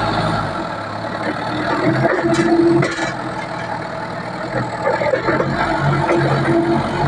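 A heavy machine's engine running steadily, with a short clatter about three seconds in.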